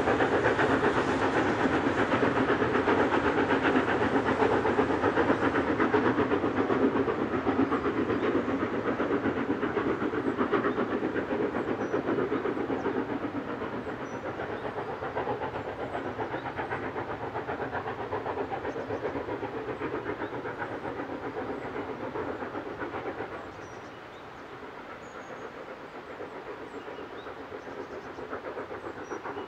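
LMS Royal Scot class No. 46100, a three-cylinder 4-6-0 steam locomotive, working a train up a climb with a rapid, steady exhaust beat. It grows fainter in the second half and drops away sharply about three quarters of the way through.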